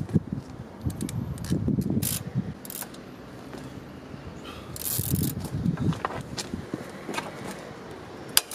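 Hand socket ratchet clicking in quick runs of ticks as a bolt on the motorcycle is turned, one run in the first two seconds and another about five seconds in, with a single sharp metallic click near the end.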